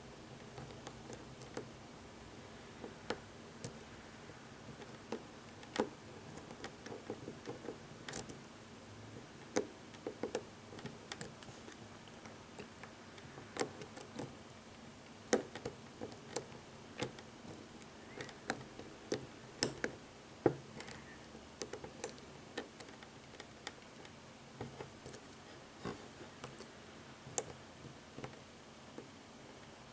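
Lock pick and tension wrench working the wafers of an American wafer lock: irregular light metallic clicks and ticks, some sharper than others, scattered throughout.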